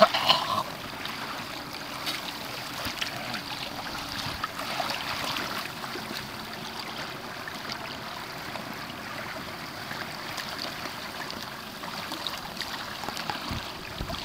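Water rushing and splashing steadily along the hull and outrigger floats of a Hobie Tandem Island sailing kayak under way, with small scattered slaps of water.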